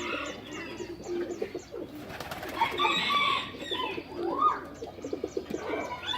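Many birds calling at once: repeated low cooing under a steady run of quick, high chirps, about four a second, with louder mixed calls in the middle.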